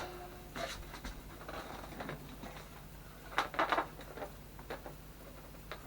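Light clicks and small rattles of hands handling parts inside a desktop PC case, with a short cluster of clicks about three and a half seconds in.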